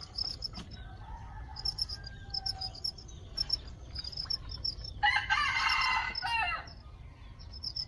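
Crickets in a home breeding colony chirping steadily and high. About five seconds in, a rooster crows once for about a second and a half, louder than the crickets.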